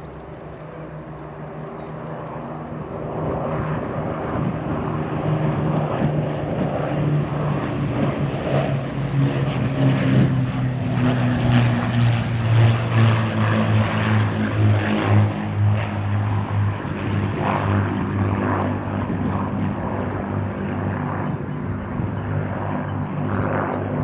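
Avro Lancaster's four Rolls-Royce Merlin V12 engines droning as the bomber flies past. The sound swells over the first few seconds and is loudest around the middle, where the engine note drops in pitch as the aircraft passes. It then eases off a little as the bomber moves away.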